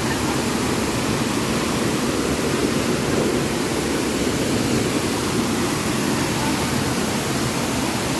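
Waterfall: water falling and rushing in a loud, steady roar.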